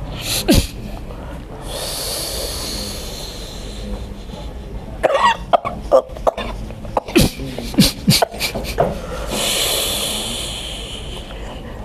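A woman coughing and gagging in a run of short harsh bursts, her persistent, long-standing cough. Before and after the bursts come two long breathy hisses.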